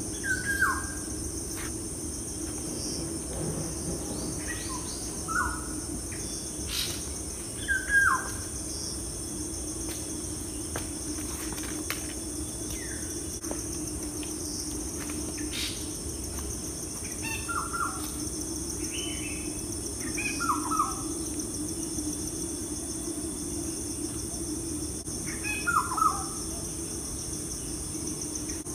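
Insects trilling steadily at a high pitch over a low steady hum, with a bird giving a short falling call every few seconds.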